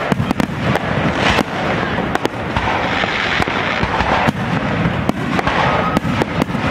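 Aerial fireworks display: a rapid, irregular series of bangs from shells bursting, over a continuous wash of noise.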